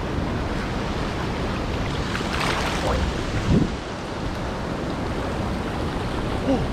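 Steady rush of creek water with wind noise on the microphone; a louder splashing patch about two and a half seconds in, and a short falling vocal sound about a second later.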